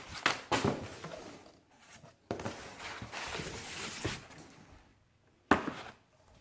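A delivered package being opened and its packaging handled: scraping and rustling with sharp clicks, a longer rustling stretch about two to four seconds in, and a sharp knock a little before the end.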